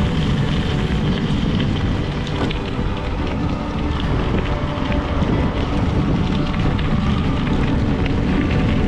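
Wind buffeting the microphone over the rumble and crunch of bicycle tyres rolling on rough off-road ground, a steady rushing noise while riding.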